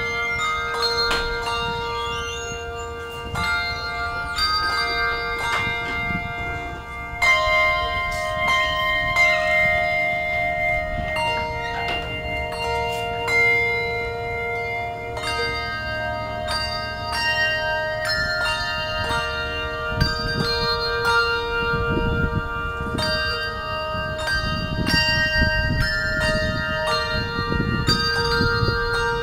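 A handbell trio playing a tune: brass handbells struck one after another, each note ringing on and overlapping the next.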